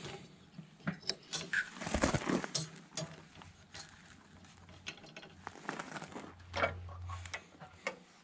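Workshop handling noises: scattered clicks, taps and knocks of tools and metal parts, over a low hum that grows louder briefly near the end.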